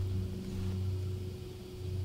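A steady low hum with a faint higher tone and a light hiss, with no knocks or handling sounds standing out.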